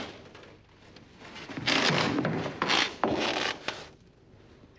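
A sharp knock at the start, then three rasping, rubbing noises, each about half a second long, between about two and four seconds in.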